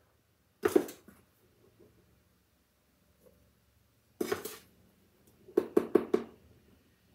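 A measuring cup scooping powdered sugar out of a plastic container and emptying it into a glass mixing bowl, knocking against them: one knock about a second in, another around four seconds, then a quick run of four or five taps near the end.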